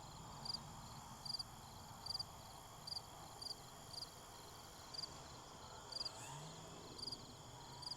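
A cricket chirping about once a second, each chirp a short high trill of a few quick pulses, faint over a steady background hiss.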